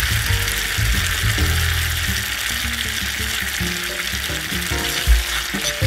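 Chopped chilies and aromatics sizzling steadily in oil in a miniature cast-iron pot, with background music playing over it.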